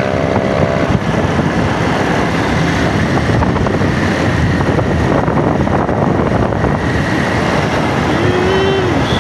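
Wind rushing over the microphone of a motorcycle being ridden at speed, with the bike's engine running steadily underneath.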